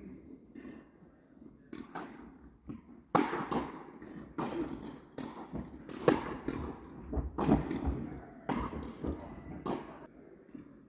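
Tennis rally: a racket strikes the ball and the ball bounces on the hard indoor court, a sharp pop about every second, each echoing in the large hall.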